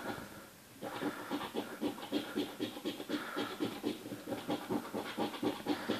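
A 5-koruna coin scraping the latex coating off a paper scratch card in quick, even back-and-forth strokes, several a second, after a brief pause just under a second in.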